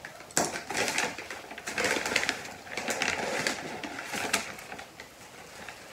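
Kraft paper wrapping crinkling and rustling in repeated short bursts as a plant is unwrapped.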